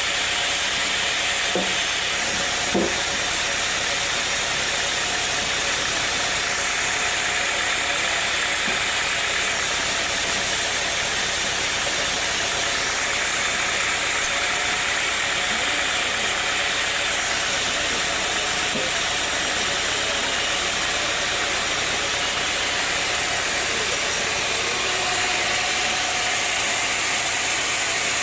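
Sawmill machinery running steadily: a constant engine drone under a loud even hiss, with two short knocks about two and three seconds in.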